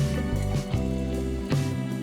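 Background music with plucked guitar-like notes over a bass line.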